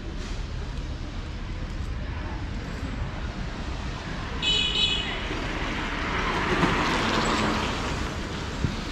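Street ambience on a tree-lined city road with a steady low traffic rumble. A short high-pitched beep sounds about four and a half seconds in. A vehicle then passes with a hiss that swells and fades around seven seconds.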